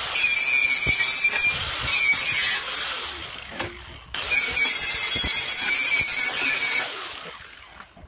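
Angle grinder with a twisted-wire knot brush scouring old paint and rust off a concrete mixer's steel frame, a loud, high, steady whine. It runs for about three seconds, fades, starts again sharply about four seconds in, and fades once more near the end.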